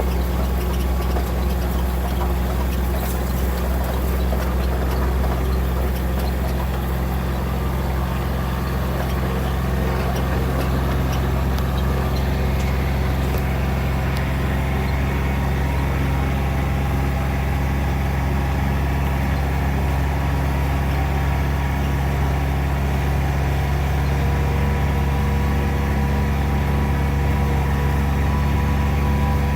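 Vehicle engine running steadily at an even pitch, heard while riding along at constant speed.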